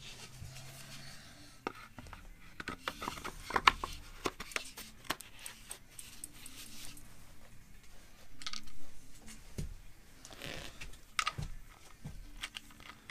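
Thin aluminium rib blank and wooden form block being handled and fitted together: a string of light clicks and taps, busiest a few seconds in, with a short scraping rustle past the middle.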